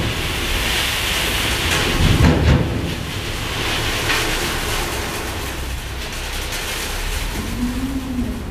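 Dump truck's diesel engine running as gravel slides and pours from its raised bed onto the driveway: a steady rushing, rain-like noise, with a heavier rumble about two seconds in.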